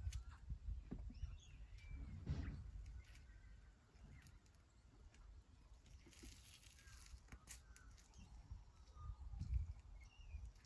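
Faint rural outdoor ambience: small birds chirping now and then over a low, uneven rumble, with a brief hiss about six seconds in.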